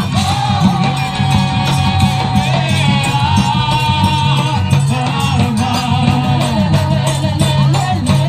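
Music: a held melody line over a steady percussive beat, between sung verses of a festive São João song.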